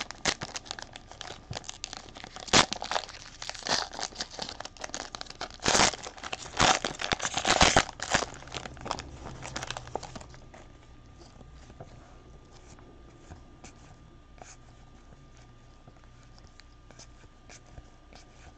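Plastic trading-card pack wrapper being torn open and crinkled, with sharp crackles over the first ten seconds or so. After that only faint rustles and ticks of cards being handled.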